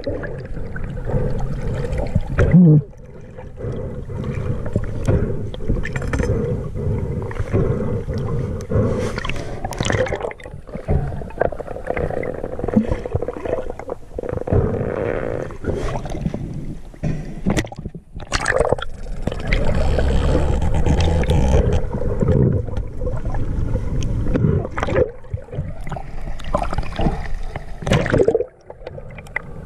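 Muffled underwater noise picked up by a submerged camera: water churning and gurgling against the housing, with scattered knocks and clicks throughout.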